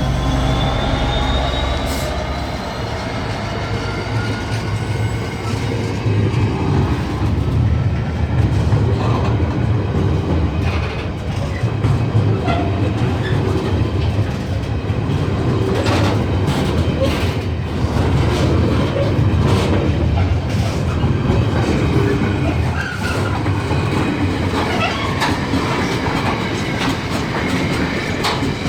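A train passing slowly over a level crossing: its running gear drones low and steady while the wheels click at uneven intervals over the rail joints. A rising whine sounds in the first few seconds.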